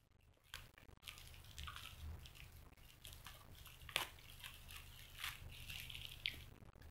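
Thin plastic wrapper of a drinking straw crinkling and tearing as it is pulled off by hand: irregular crackles, with one sharp snap about four seconds in.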